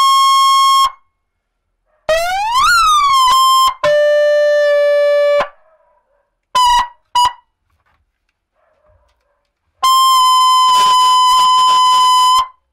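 100-watt electronic vehicle siren blaring through its horn speaker as its tone buttons are pressed one after another. First a steady shrill tone, then a wail that rises and falls back, then a lower steady tone, two short blips, and finally a long steady tone with a rapid fluttering crackle over it near the end, each cutting off sharply.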